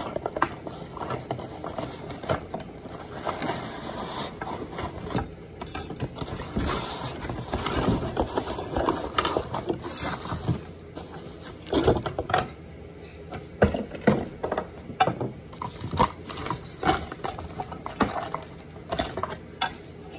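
Cardboard and plastic packaging being handled: continuous rustling and scraping with irregular knocks and clicks as pieces are pulled out and set down, a few sharper knocks about halfway through.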